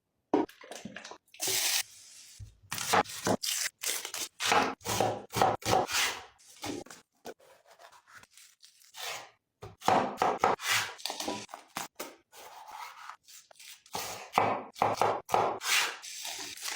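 A series of short, irregular scraping and tearing strokes with brief pauses between them.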